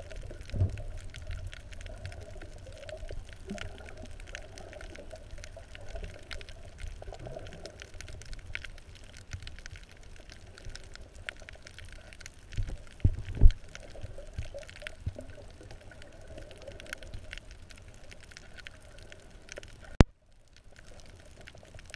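Underwater sound picked up by a submerged camera: a steady crackle of tiny clicks over a faint wavering drone, broken by a few low thumps, the loudest about 13 seconds in. A sharp click about 20 seconds in, after which the sound goes much quieter.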